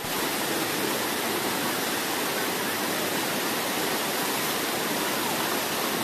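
Waterfall: white water rushing steadily over rock slabs and around a boulder.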